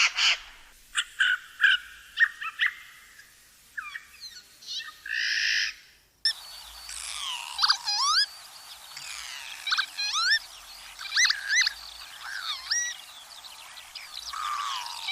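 Birds calling in two back-to-back recordings. First a loud call and short chirping notes, then, after an abrupt cut about six seconds in, a bird singing repeated whistled notes that sweep up and down over a steady background hiss.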